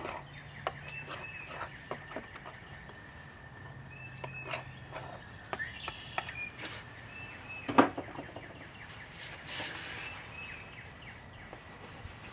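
Palette knife clicking, tapping and scraping against a wooden paint palette as oil paint is mixed, with one sharper knock about two thirds of the way through. Birds give short chirps, in pairs, several times.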